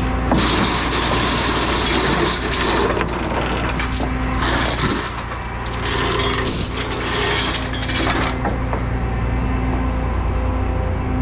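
An engine running steadily, with repeated metallic clinking and rattling over it.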